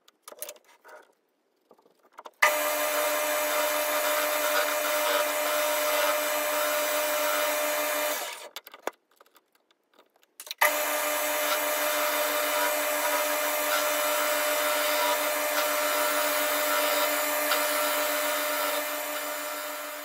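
Boxford lathe running steadily, turning down a cast aluminium blank. It starts suddenly about two seconds in, stops about eight seconds in, and starts again about two and a half seconds later. A few light clicks come before each start.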